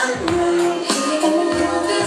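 Dance music with a voice singing a melody over a beat.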